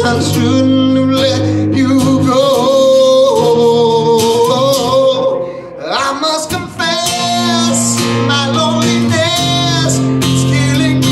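A man singing live into a microphone while strumming an acoustic guitar. About six seconds in the music drops briefly and the voice slides up in pitch.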